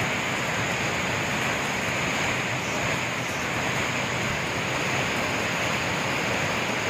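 Kempty Falls in flood after heavy rain: a swollen waterfall pouring down with a steady, even rushing noise.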